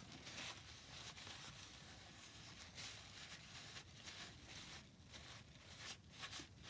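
Near silence, with faint irregular scratchy rustling strokes.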